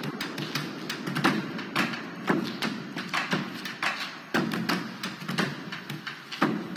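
Tense background music: a low sustained drone with quick, irregular tapping and knocking hits, several a second.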